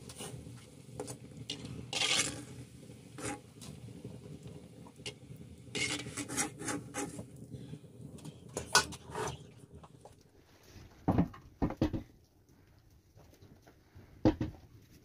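A metal skimmer scraping and clinking against a black iron wok as fried khajor dough pieces are lifted out of the oil, over a steady low background. About ten seconds in this gives way to a few separate knocks of dough being handled on a wooden board.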